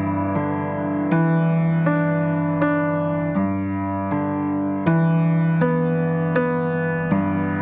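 Background music: a piano-like keyboard playing slow, sustained notes, with a new note struck about every three quarters of a second.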